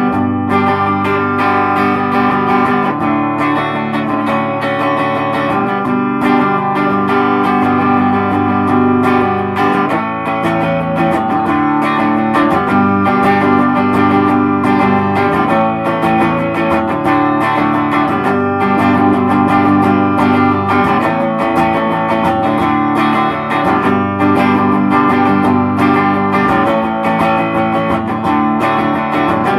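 Rickenbacker electric guitar played through a Ted Weber Natalie kit-built tube amp, running four 6V6 and three 12AX7 tubes, on its normal channel set for a clean-ish tone: chords and notes played continuously.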